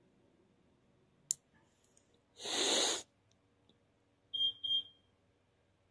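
Two short high-pitched electronic beeps in quick succession. Before them come a single sharp click and a breathy hiss of about half a second.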